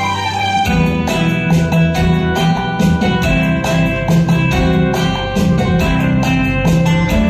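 Instrumental interlude of a karaoke backing track, with sustained instrument notes over a steady beat and no singing.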